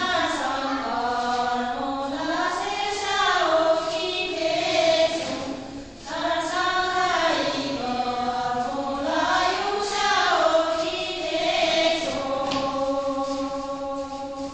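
A group of Sherpa women singing a Shyapto (Shyabru) dance song in unison, in slow, drawn-out phrases that rise and fall in pitch. A second phrase begins about six seconds in, and a long note is held near the end.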